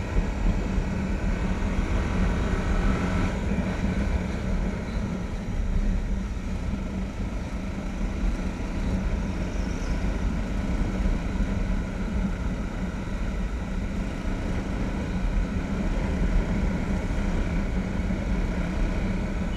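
Motorcycle engine running steadily while riding, with wind rumble on the bike-mounted microphone.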